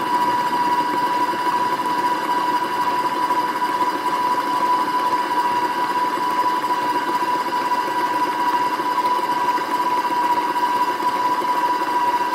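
Electric stand mixer running at a steady speed, its motor giving a steady high whine as it beats the egg, sugar and oil batter in a stainless steel bowl, whipping it until fluffy and doubled.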